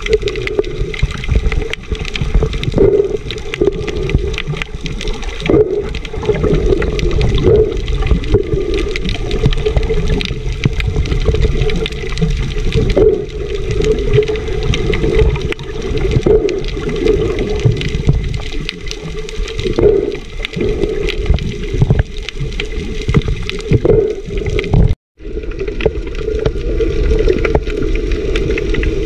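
Muffled underwater water noise, recorded with the camera below the surface: sloshing and gurgling that swells and ebbs as a snorkeler swims and kicks, over a steady low hum. The sound cuts out briefly about 25 seconds in.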